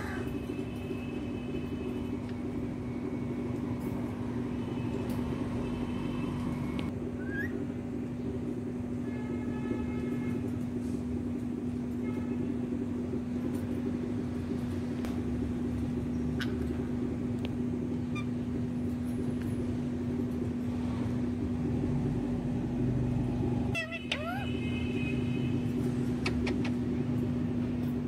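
Steady low machine hum, with a few brief faint bird chirps and scattered clicks over it.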